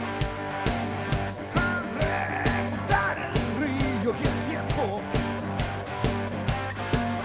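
A rock band playing live: electric guitars over a steady drum beat.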